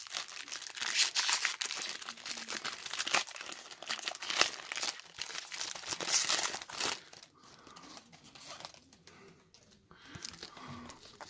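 Foil trading-card booster pack wrapper crinkling and tearing open, then quieter, sparser rustling for the last few seconds.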